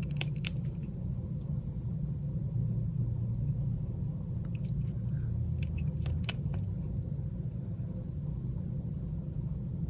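Small sharp clicks of tiny screws and a precision screwdriver against a phone's metal parts, in a few clusters, over a steady low rumble.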